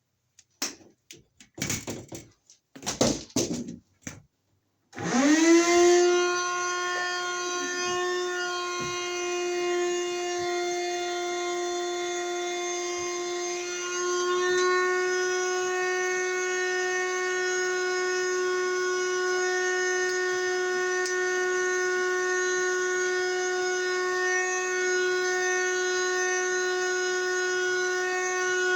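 A few seconds of handling clicks and rustles, then an electric motor spins up quickly and runs at a steady speed with a loud, even whine.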